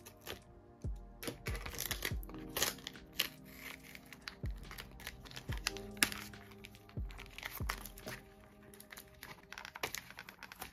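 Plastic card sleeves crinkling, tape tearing and cardboard packaging rustling as photocards are unpacked, with many irregular clicks and rustles, over soft background music.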